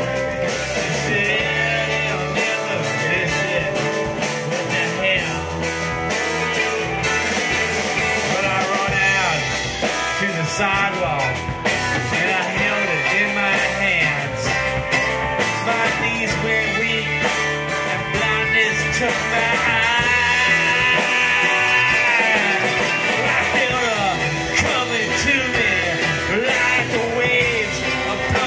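Live band playing a bluesy rock song: electric guitars, electric bass and drum kit, with a man singing into the microphone.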